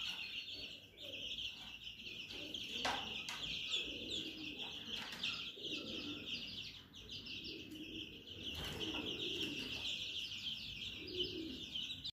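A flock of two-week-old baladi (native Egyptian) chicks peeping continuously, many high chirps overlapping, with a couple of sharp knocks about three and nine seconds in.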